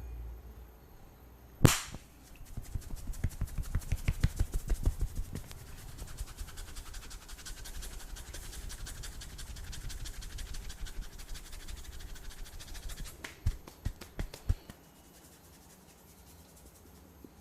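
Hands working on a head in a massage: one sharp slap, then fast, rhythmic tapping and rubbing for about eleven seconds, heavier at first and lighter later, ending with a few separate slaps.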